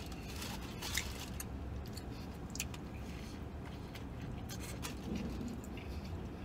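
A man biting into and chewing a sub sandwich: wet, squishy mouth sounds with scattered short crackles, over a steady low hum.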